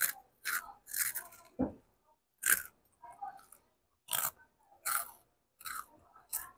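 A child biting and chewing a crunchy snack, with about nine separate crunches at an uneven pace.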